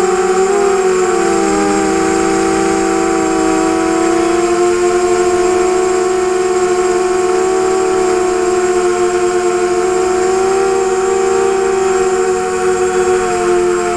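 ZMR250 quadcopter's brushless motors and propellers whining steadily in flight, heard from the onboard camera. The pitch wavers and dips briefly about a second in, then holds.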